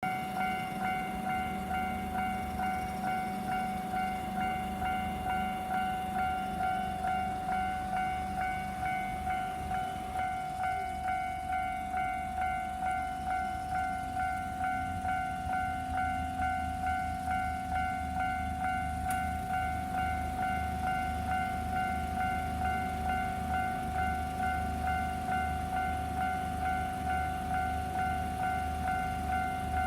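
Japanese level-crossing alarm bell ringing in an even, repeating pattern of electronic dings. About halfway through, the low rumble of an approaching diesel train builds beneath it.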